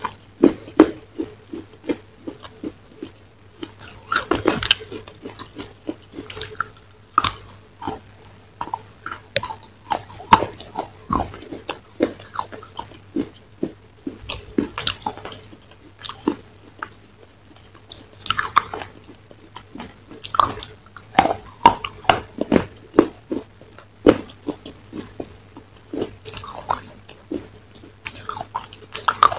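A person chewing food close to a microphone: irregular wet smacks and clicks, several a second, with louder bursts of chewing now and then.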